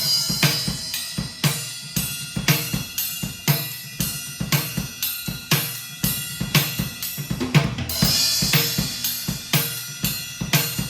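Drum kit fitted with Remo Silentstroke mesh drumheads and Kasza Quiet on the Set low-volume practice cymbals, played in a steady groove of kick, snare and hi-hat. A cymbal wash rings out at the start and again about eight seconds in.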